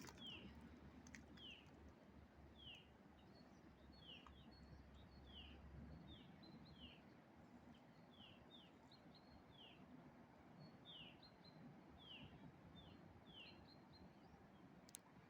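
A small bird calling over and over, short falling chirps about one or two a second, faint over a low outdoor hiss.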